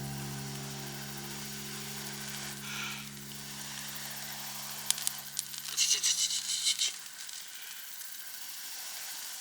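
A held musical chord fading out over a steady hiss, with a short spell of crackling and clicks about five to seven seconds in.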